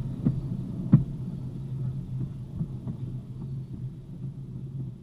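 Train wheels rolling away over the rails: a couple of sharp clicks in the first second, then fainter ones, over a low rumble that fades out.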